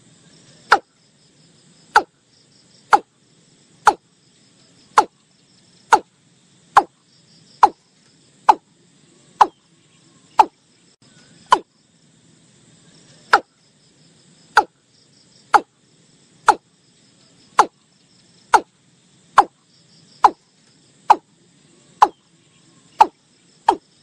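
Watercock calling: a long series of short, downward-sliding notes, about one a second, coming faster near the end.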